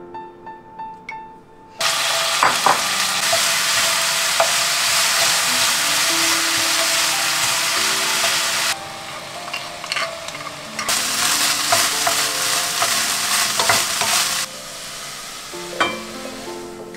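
Food frying and sizzling in a hot pan. The sizzle starts suddenly about two seconds in, drops away around nine seconds, comes back about two seconds later and fades again near the end, with a few sharp clicks of a utensil against the pan. Soft piano music plays underneath.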